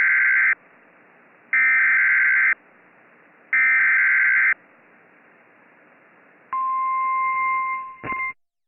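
Three bursts of Emergency Alert System SAME header data, each a harsh warbling screech about a second long, spaced a second apart and opening the next alert. About two seconds later the NOAA Weather Radio 1050 Hz warning alarm tone sounds as a steady high beep for under two seconds, cut by a click near the end.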